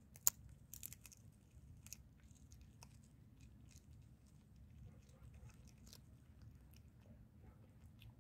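A cat chewing and biting on a piece of meat and bone: faint wet clicks and crunches, the sharpest about a third of a second in, thinning out after about three seconds.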